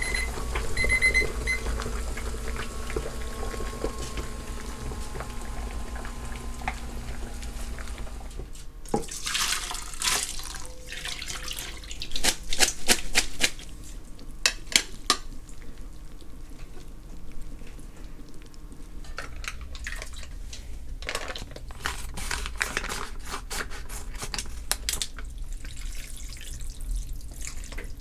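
A digital kitchen timer beeps in the first second or so. About eight seconds in, hot water splashes into a sink as ramen noodles are drained through a metal colander, followed by clattering and scattered clinks and knocks of the colander and a ceramic bowl.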